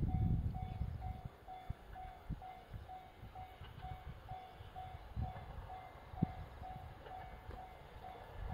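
Railway level-crossing warning bell ringing in an even repeating ding, about two strikes a second, the signal that a train is approaching. A low rumble and a few soft thumps lie beneath it.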